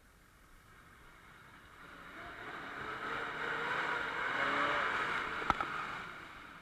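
An off-road 4x4 vehicle passing, its engine and wash growing louder to a peak about five seconds in and then fading away, with a single sharp click near the end.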